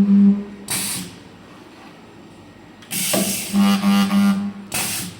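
PEI PF136 projection spot welder cycling through weld strokes under function test. A steady electrical buzz of about a second comes from the welding transformer as weld current flows, and a short hiss of compressed air is heard as the pneumatic ram closes and releases. One buzz ends just after the start and is followed by a hiss; a second full cycle of hiss, buzz and hiss comes in the second half.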